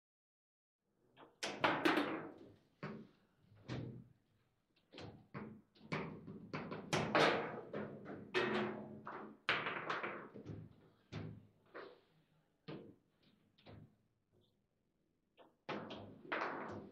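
Irregular sharp knocks and thuds from a table football table, the rods, figures and ball striking and clacking, dense for the first ten seconds and then sparser with short pauses.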